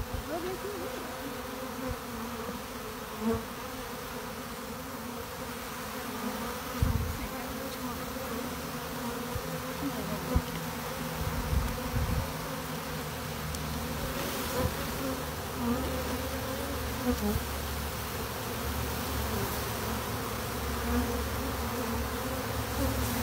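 A honeybee swarm humming steadily and close. A few short low thumps come through, and there is more low rumble in the second half.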